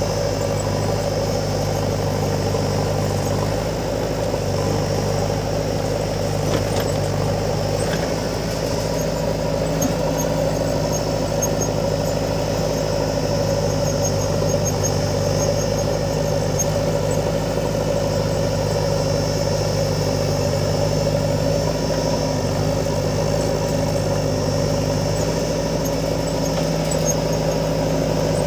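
Diesel engines running steadily: a JCB 3DX backhoe loader working its front loader bucket of soil next to an Eicher tractor. Faint high squeaks come and go.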